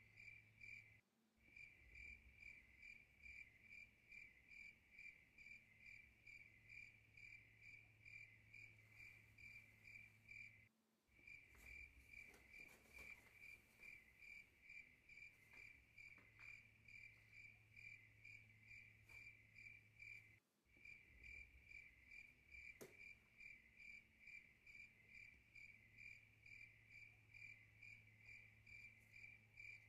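Faint cricket chirping: an even, rapid run of high chirps, several a second, over a low steady hum. The chirping breaks off briefly three times and resumes.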